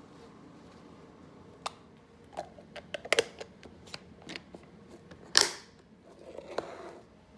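Handling noises: a scatter of sharp clicks and light knocks, then a short, loud rustling or scraping burst about five seconds in, and a softer rustle after it.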